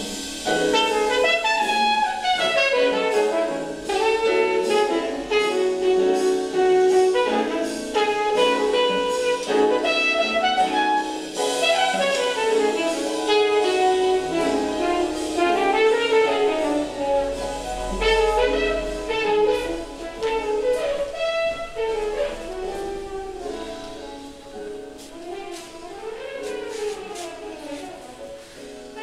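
Instrumental music in a jazz style, a melody of moving notes over an accompaniment, growing quieter over the last several seconds.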